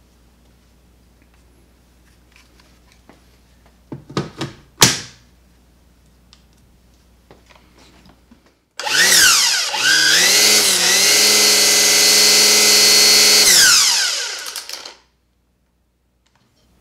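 An M18 battery pack snaps into place with a sharp click about five seconds in. A few seconds later the Milwaukee M18 Fuel string trimmer's brushless motor is triggered: it spins up at once with a rising whine, wavers briefly, holds a high steady whine for about three seconds, then falls in pitch as it coasts to a stop.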